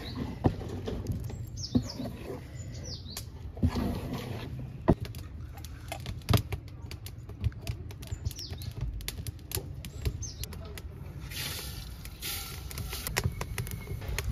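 Clicks and knocks of a wooden spoon and cooking pots being handled, with a bird giving short high, downward-sweeping chirps several times and a hiss lasting about a second and a half near the end.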